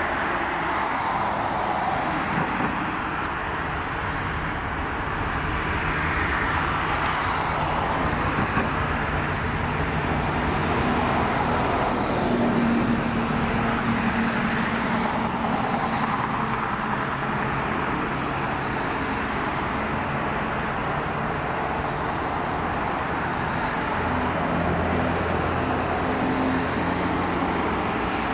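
Steady rumble of jet airliner engines at an airport, swelling slowly in loudness a few times, with a low steady engine hum and road traffic mixed in.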